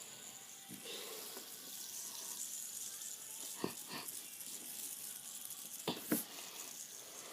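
Fidget spinner's bearing whirring faintly with a steady hiss as it spins in the hand, with a few light clicks from handling, two near the middle and two shortly after.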